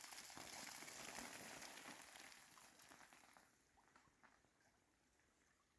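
Faint hissing patter of ice falling through tree branches, a shower of many tiny impacts that dies away after about three seconds, leaving a few scattered ticks.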